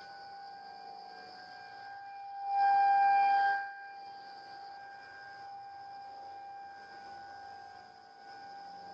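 Tornado warning siren sounding a steady tone, swelling much louder for about a second near the middle, heard through a Ring camera's microphone.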